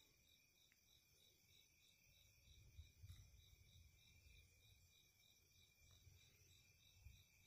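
Near silence with faint night insects chirping in a steady, evenly pulsed rhythm of about four chirps a second.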